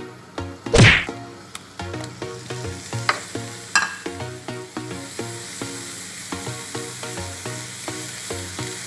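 Tomato slices sizzling as they fry in a hot nonstick frying pan and are moved about with a wooden spatula, with steady hissing as their water cooks off. One loud sweeping rush of sound about a second in.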